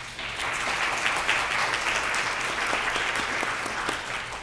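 Audience applauding, starting abruptly and dying away near the end.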